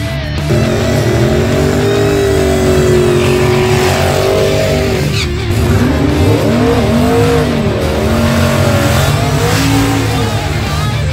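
Drag-race Mustang's engine revving up and down at the starting line, then launching down the strip with its tires spinning near the end.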